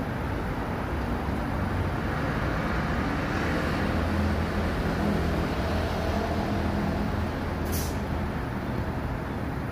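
An R62A subway train standing with its doors open, its on-board equipment giving a steady hum that swells a little in the middle. A short hiss of air comes near the end.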